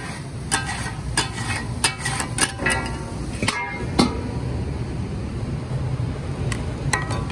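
Steel spatulas clanking and scraping on a large flat iron griddle while chopping taka tak, some strikes ringing briefly. A steel bowl is clanked down over the food about halfway through, after which only a couple of clicks follow over a steady low hum.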